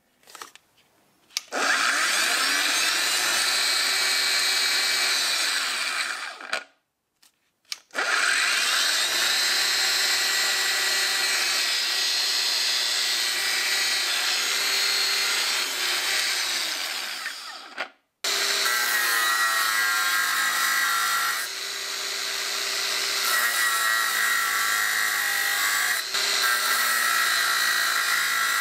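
Metabo WB 18 LTX cordless brushless angle grinder spinning up, running free and winding down twice, tested after repair. From about 18 seconds in, its abrasive disc cuts into steel, and the sound turns uneven and wavering.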